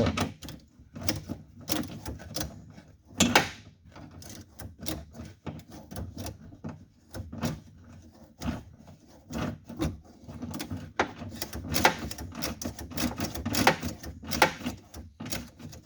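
A 10 mm ratchet wrench clicking in short, irregular runs as the nuts holding a door handle are snugged up inside a pickup's door, with knocks of metal on metal; one sharp knock about three seconds in is the loudest.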